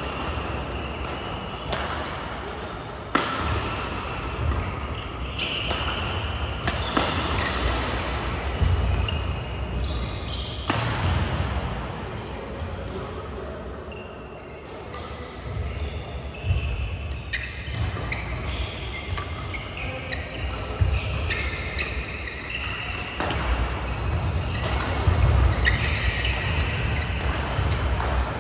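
Badminton hall sounds: sharp pops of rackets striking shuttlecocks and squeaks of court shoes on synthetic court mats, from several courts at once, over a steady low hum of the hall.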